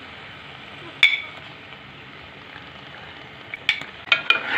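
Metal ladle clinking against an aluminium cooking pot and a plate as boiled eggs are spooned into thick spinach curry. One sharp ringing clink about a second in, then a few more clicks and knocks near the end, over a low steady sizzle from the pot.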